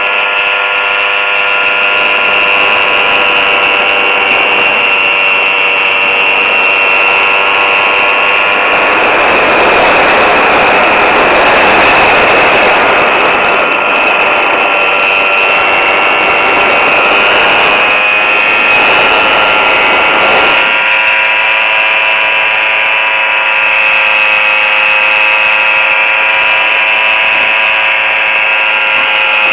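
Small engine of a powered hang glider running steadily in flight, a high buzzing drone at constant pitch. Wind rush over the microphone swells in the middle and fades again.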